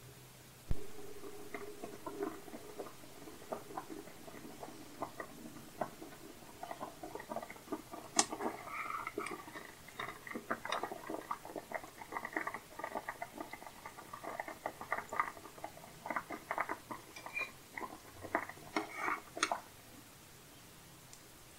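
Water boiling hard around kibbeh balls in a metal pot: dense, irregular bubbling and popping, with a metal spoon now and then clinking against the pot. A sharp knock about a second in is the loudest sound.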